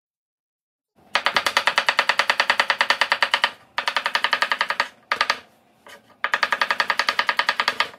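Kitchen knife rapidly chopping onion on a plastic cutting board, about eight strikes a second in runs of one to two seconds with short pauses between them, starting about a second in.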